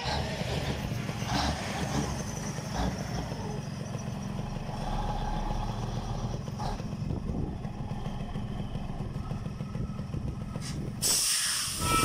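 Heavy truck's engine running steadily with a low rumble, then a loud burst of air hiss from the air brakes near the end.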